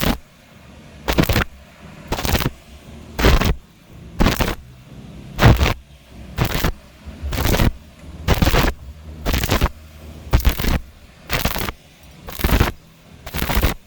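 Stick welding arc crackling in short bursts about once a second, the rod struck and lifted again and again in a stitch-style weld on a round tube.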